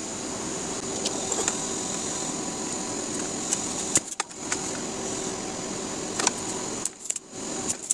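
Steady workshop background hum, with a few light clicks and taps from handling the circuit board on the bench.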